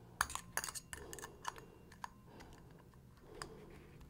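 Faint, light metal clicks of snap ring pliers working on the steel snap ring that joins an 8L90 transmission's number 2 and number 3 sun gears. The clicks come as a scatter, most of them in the first second and a half, with a few single clicks later.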